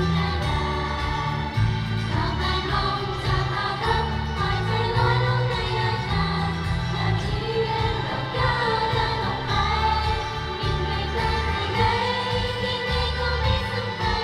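Pop song with a female idol group singing together over a backing track, played through a stage PA, with a steady bass line underneath.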